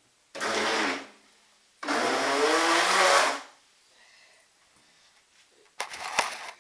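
Electric RC speedboat's motor and propeller spun up out of the water in three short whirring bursts. The middle burst is the longest, about a second and a half, with its pitch shifting as it runs.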